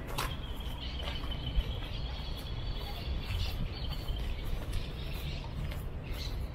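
Outdoor ambience beside a city street: a steady low rumble of traffic, with a thin high steady tone running for about the first half.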